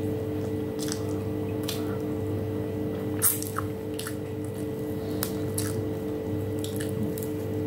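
Chewing and wet mouth sounds: soft smacks and clicks scattered irregularly, the sharpest about three seconds in, over a steady low hum.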